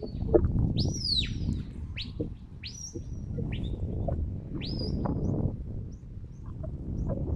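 Shepherd's whistle commands to a working sheepdog: a series of sharp whistles that glide up and down in pitch, the longest about a second in, followed by shorter rising blasts and a few quick chirps. Wind rumbles on the microphone underneath.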